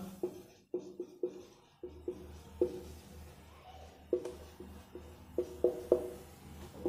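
Whiteboard marker writing on a whiteboard: a string of irregular short taps and strokes, each with a brief ringing from the board, over a low hum.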